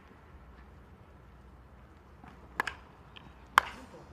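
Wooden baseball bat cracking against a ball in a full swing, one sharp crack about three and a half seconds in. About a second earlier there is a quicker, fainter double knock.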